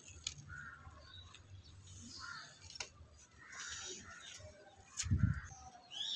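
Birds calling outdoors, with a few light clicks of a small metal spatula against a miniature clay cooking pot and a low thump about five seconds in as the pot is handled.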